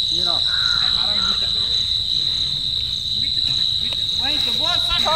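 Insects chirring in one steady, unbroken high-pitched tone.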